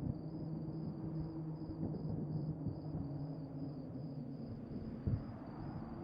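Spooky graveyard ambience: crickets chirping steadily, about two to three chirps a second, over a low rumble with sustained droning tones, and a dull thump about five seconds in.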